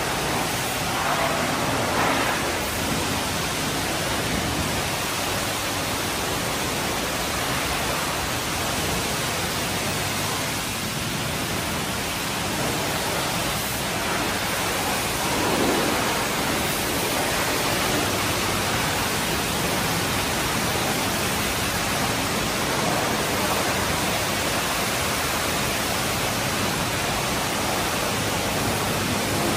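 High-pressure water jets of an automatic car wash spraying a minivan: a steady, noisy hiss of water with no let-up.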